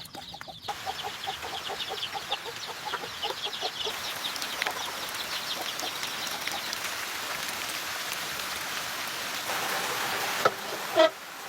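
Chickens clucking and chicks peeping in quick short calls over a steady rush of rain. Two sharp knocks sound near the end.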